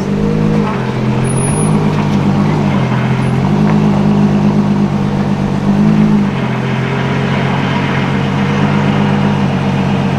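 Sports car engine idling, with a few quick blips of the throttle that briefly raise its pitch before it settles back to a steady idle.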